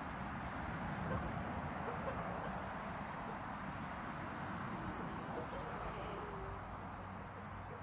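Steady high-pitched drone of an insect chorus, such as crickets, running without a break.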